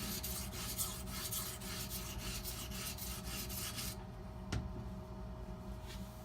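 Butcher knife's edge stroked back and forth on a wet Edge Pro sharpening stone: a quick run of light scraping strokes that stops about four seconds in, followed by one faint click. The strokes are raising a burr along the knife's curved tip.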